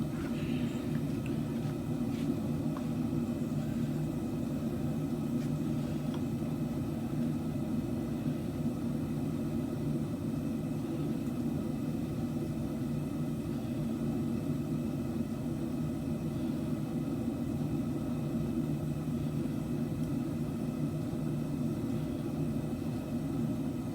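Steady low rumble of smithing equipment running without a break, with no hammer blows or other impacts.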